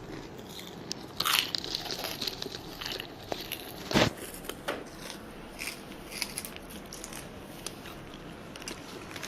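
Potato chips being bitten and crunched in quick, irregular bites, with chewing in between; the two loudest crunches come about a second and a half in and about four seconds in.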